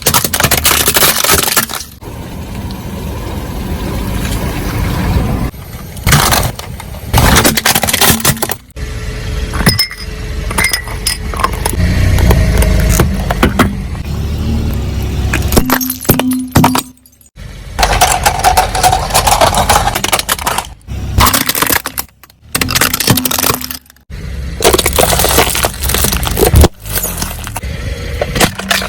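A series of objects crushed under a car's tyres: loud cracking, crunching and breaking, some with a glassy clink. The clips are cut together abruptly, with brief gaps between them.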